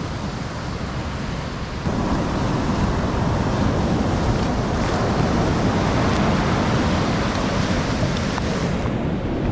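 Surf washing up the beach, with wind buffeting the microphone. It gets louder about two seconds in.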